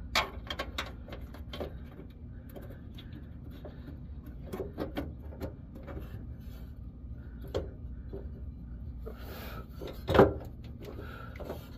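Scattered light clicks and knocks of a bolt and the fuel tank strap being handled and fitted by hand, with one louder knock about ten seconds in, over a steady low background hum.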